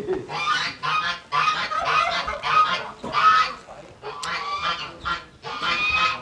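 Geese honking over and over, a rapid run of short calls at about two a second.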